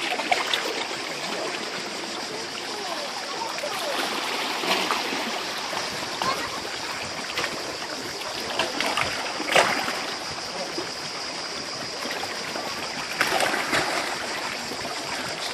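Seawater lapping and splashing against a rocky shore, with several sharper splashes, the loudest about halfway through, over a steady high-pitched hiss.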